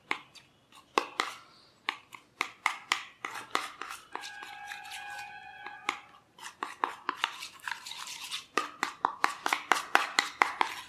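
A spoon clinking and scraping in a bowl while stirring a thick paste of grated ginger, honey and black pepper: quick repeated taps, several a second. About four seconds in, a ringing tone sounds for about two seconds.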